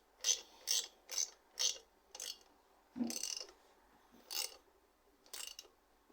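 Sharp mechanical clicks from hand work on bicycle parts, about two a second for the first couple of seconds, then a few more spaced further apart.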